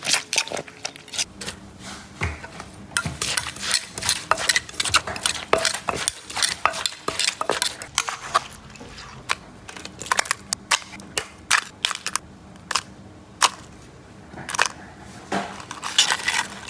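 Irregular clinks, taps and crunching from utensils knocking against dishes and food, with many sharp, uneven clicks and no steady beat.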